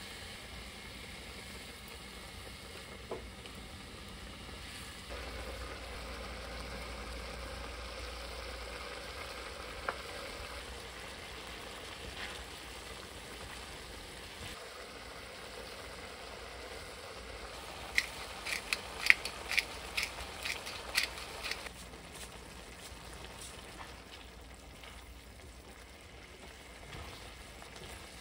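Mapo sauce simmering and sizzling steadily in a wok while a spatula stirs through it. About two-thirds of the way through, a quick run of sharp clicks and taps.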